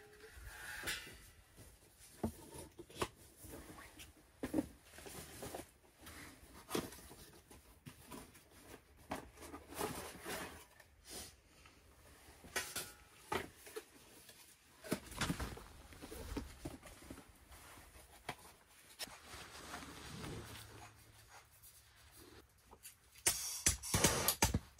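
Irregular rustling, clicks and knocks of camping gear being unpacked by hand: items lifted from a bag and boxes set down. Background music with a steady beat comes in near the end.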